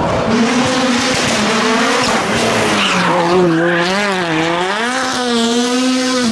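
Rally car engine revving hard and falling back as the car slides sideways through a hairpin, with tyre squeal. The engine pitch swings up and down several times, fast in the middle, and ends on a held high note.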